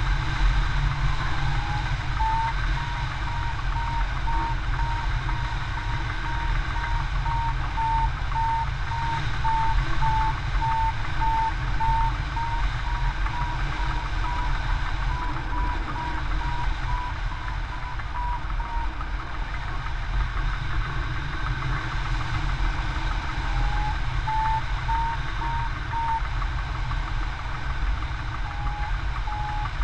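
Wind rushing over the microphone of a hang glider in flight, with a variometer beeping about twice a second, its pitch creeping slightly up: the climb tone that signals the glider is rising in lift. The beeping stops after about nineteen seconds, then comes back briefly twice near the end.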